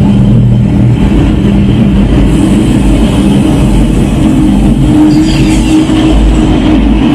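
Movie soundtrack playing loudly through a home-built 7.1 Dolby Digital amplifier and its speakers: a dense low rumble with sustained low tones, and a brief high sweep about five seconds in.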